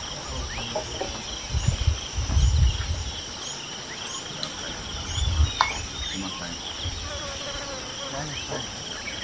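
Steady, high-pitched insect chorus buzzing without a break, with scattered short bird chirps over it. Bursts of low rumble come about one and a half to three seconds in and again near five and a half seconds.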